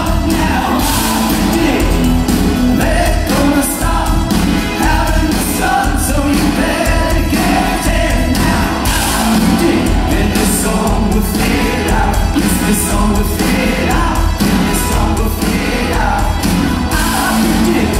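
Live rock band playing with a male lead singer over keyboards, electric guitar and drums, heard loud from among the audience in the hall.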